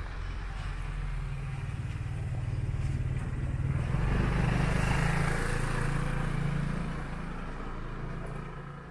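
A motor vehicle passing close by: its engine hum and tyre noise swell to a peak about halfway through, then fade away.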